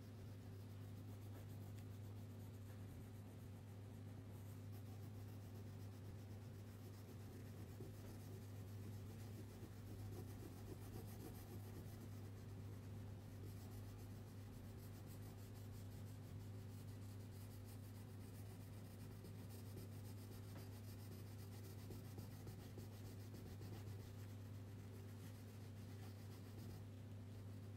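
Felt-tip marker rubbing and tapping on paper as a bonnet is coloured in, a faint run of small scratchy strokes, over a steady low electrical hum.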